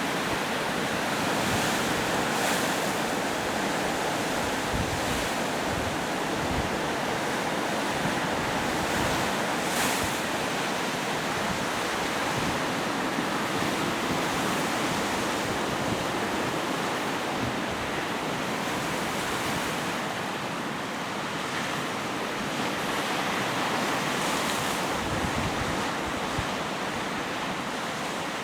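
Big waves on Lake Ontario breaking and washing ashore in a steady wash of surf, with gusts of wind buffeting the microphone now and then.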